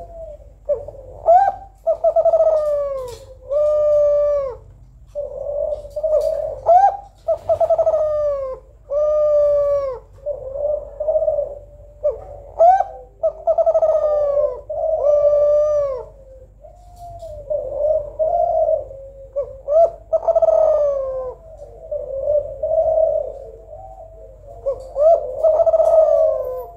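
Female spotted dove of the Kelantan strain (tekukur) cooing, repeating phrases of several smooth coos with short breaks between them. It is the manggung call a female uses to call males.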